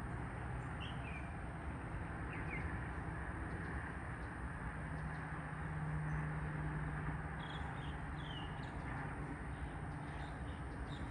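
Outdoor background with a steady low hum that swells a little in the middle, and short, quick bird chirps here and there, more often near the end.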